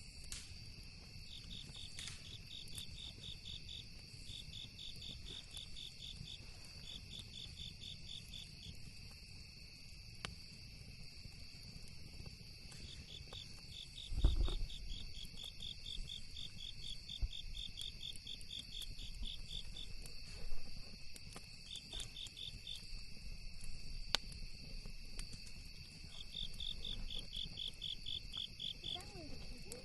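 Night insect chorus: a steady high-pitched drone with a cricket trilling in repeated short bursts of rapid pulses, and occasional sharp crackles from a campfire. A low thump about halfway through.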